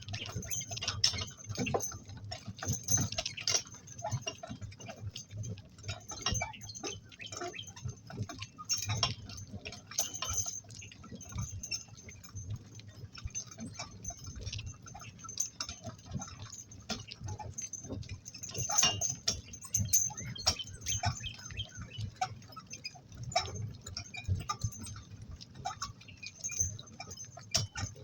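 Donkey harness and work-cart hardware clinking and rattling irregularly, with sharp scattered clicks as the team works in harness.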